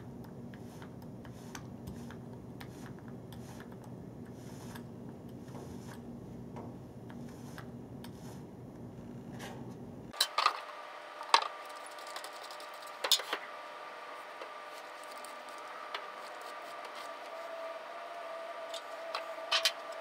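Steady low background hum that cuts abruptly about halfway to a thinner, higher hum, with a few sharp clicks and knocks soon after the change and another pair near the end.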